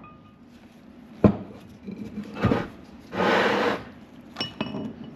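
Hammer and drift knocking out the old rear wheel bearing race from the hub: a sharp blow about a second in and a second knock a little later. These are followed by a short scraping rasp and some light metallic clinks near the end.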